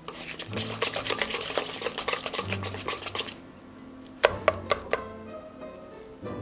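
Wire whisk beating egg into creamed butter and powdered sugar in a stainless steel bowl: fast scraping strokes for about three seconds, then softer, with a few sharp knocks against the bowl.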